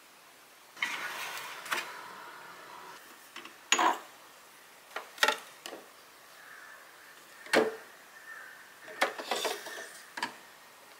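Plastic skincare jars and bottles being handled in a clear acrylic organizer. A rubbing, sliding sound comes about a second in, then a string of sharp knocks and clicks as containers and lids are picked up and set down, the loudest near four and eight seconds in.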